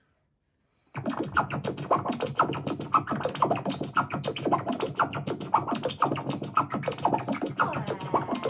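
Comic sound effect of a slime bouncing: after about a second of silence, a fast, continuous string of short pops and springy blips, several a second.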